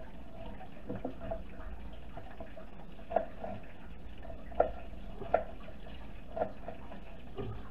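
A kitchen utensil knocking and tapping about six times, unevenly spaced, as diced garlic is scraped and tapped off into a pan of melted butter, over a low steady hum.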